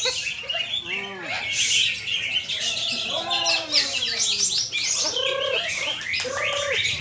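Many caged songbirds singing at once, a dense, overlapping chatter of high chirps and trills with no pause, as at a songbird singing contest.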